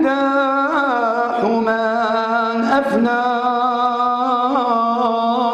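A man chanting an Arabic devotional hymn (ibtihal) in praise of the Prophet Muhammad, solo and unaccompanied, holding long notes ornamented with melismatic slides.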